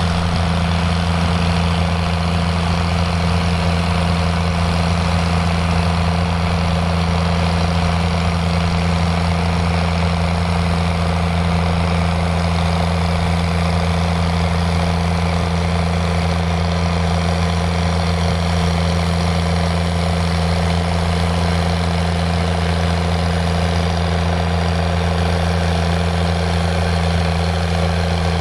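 Fiat 110-90DT tractor's diesel engine running at a steady, unchanging speed, a deep even drone with no revving or load changes.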